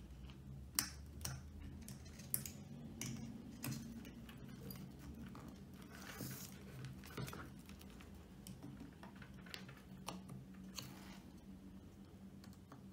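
Scattered light clicks and taps as a speaker crossover circuit board is handled and turned in a metal helping-hands clamp, the two sharpest about a second and two and a half seconds in, over a faint low hum.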